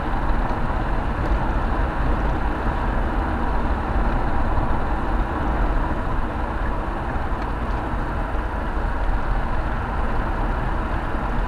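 Steady road noise from inside a car cruising on a sealed country road: tyre and engine noise, heaviest in the low end, with no distinct events.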